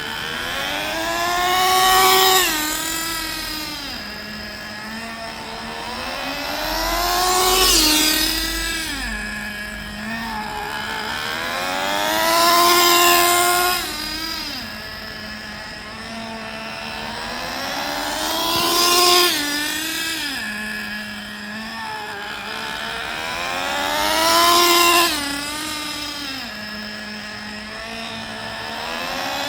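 Traxxas Slayer nitro RC truck driving repeated laps past, its small nitro engine's high whine rising in pitch and loudness as it approaches and dropping away after it passes, five times about every five and a half seconds. The engine is being run in at part throttle during break-in.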